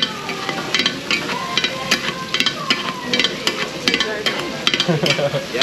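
Metal spatulas clacking and scraping against a hot teppan griddle as monjayaki ingredients are chopped and mixed, several quick irregular clacks a second, over the sizzle of the cooking vegetables.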